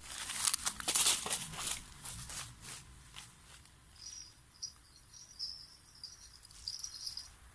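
Rustling and handling noises for the first few seconds, then an insect, cricket-like, chirping in broken high trills from about four seconds in until just before the end.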